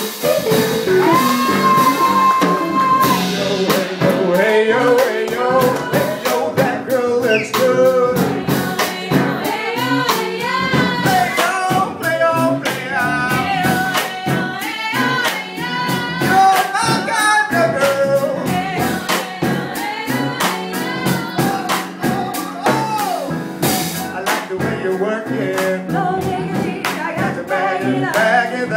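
Live singing over a steady beat, with one voice holding a long note about a second in, then moving melody lines over the rhythm.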